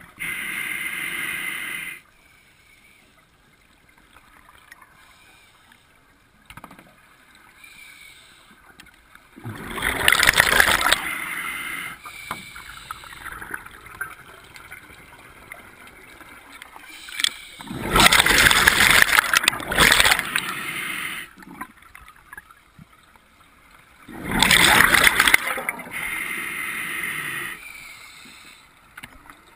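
Scuba diver breathing through a regulator. A hissing inhalation comes at the start and again near the end, and three loud gurgling rushes of exhaled bubbles come several seconds apart, with quiet breath-holds between.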